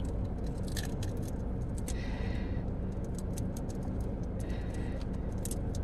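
Steady low hum of a car's engine idling, heard inside the cabin, with scattered small clicks and smacks of someone eating crawfish.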